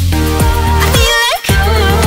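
Background pop music with a steady beat and deep bass.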